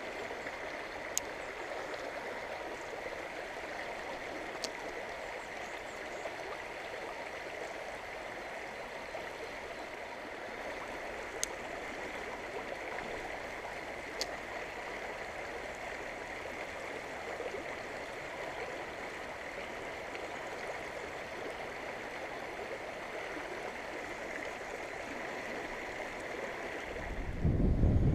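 Fast, clear mountain stream rushing steadily over rocks. A few brief sharp clicks sound through it, and a loud low rumble builds up near the end.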